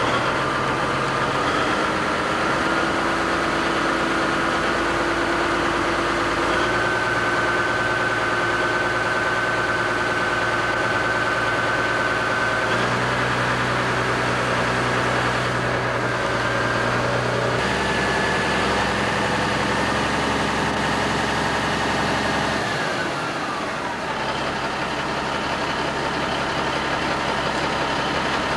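Semi-truck diesel engine running: its pitch steps up and holds several times, then falls back about 23 seconds in and settles to a steady, lower idle.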